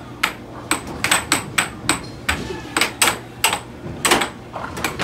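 Air hockey rally: a quick, irregular run of sharp clacks, about a dozen, as the mallets strike the puck and it bangs off the table's rails.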